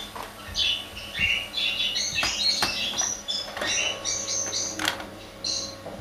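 Budgerigar chattering in a run of short, high chirps and warbles, with a few sharp clicks.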